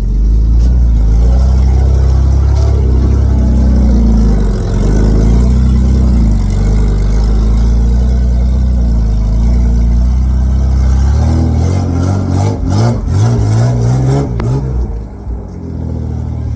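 Straight-piped Nissan RB30 straight-six in a Patrol 4WD, running loud and steady under load, then revving up and down several times near the end.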